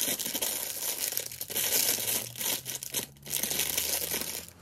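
Clear plastic wrapping crinkling and rustling as it is handled and pulled off a small costume piece, in uneven bursts with brief pauses.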